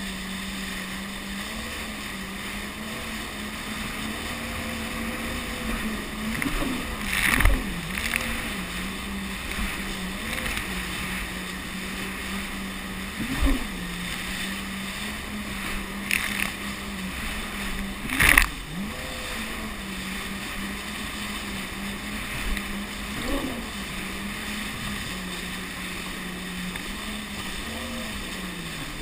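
Jet ski engine running at a steady pitch, dipping briefly several times as the throttle eases and picks up again. Several sharp thumps break through, the loudest about 18 seconds in.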